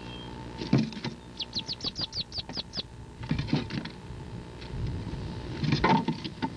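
Wood ducklings scrambling inside a wooden nest box: knocks and scrabbling against the box about a second in, again past the middle and near the end, with a quick run of about ten short, falling high peeps between the first two.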